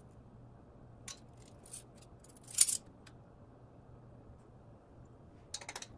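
Metal measuring spoons clicking and clinking against a small bowl. There are a few scattered clicks, one louder clink about two and a half seconds in, and a quick rattle of the spoons near the end. A faint steady hum runs underneath.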